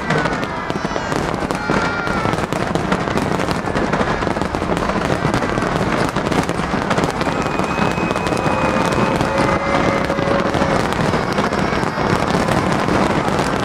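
A dense fireworks barrage: shells bursting in rapid, overlapping bangs and crackling with no let-up.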